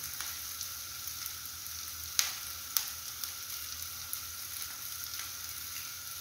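Chopped onions and turmeric frying in oil in a pan, a steady sizzle. Two sharp clicks come out of it between two and three seconds in.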